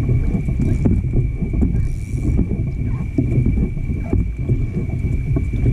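Choppy water slapping and sloshing against a fishing kayak's hull, with a dense low rumble and irregular knocks. A thin, steady high whine runs underneath.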